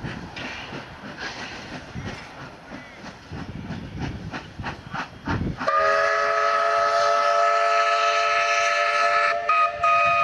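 Steam locomotive W934 working away with its exhaust beating in a steady rhythm. About halfway through, its steam whistle sounds a long chord of several notes, which is the loudest sound. The whistle breaks off briefly near the end, then resumes.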